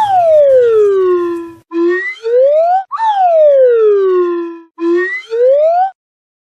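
Siren sound effect wailing: a tone climbs over about a second and falls more slowly, three times, with abrupt cuts between cycles. It breaks off sharply partway through a rise about a second before the end.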